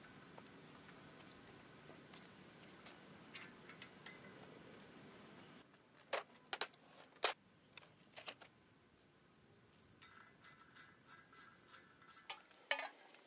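Faint, sharp clicks and clacks of quick-release bar clamps being released and taken off a steel post, with a denser run of clicks near the end.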